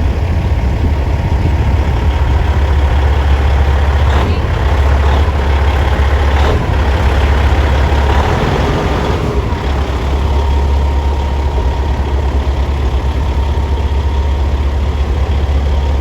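Semi-truck diesel engine idling with a steady low rumble. Two short clicks come about four and six and a half seconds in.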